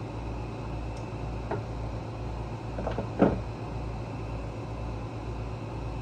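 A few light clicks and one sharper, louder knock a little past three seconds in, from parts and tools being handled while a small-engine carburetor is taken apart. A steady low hum runs underneath.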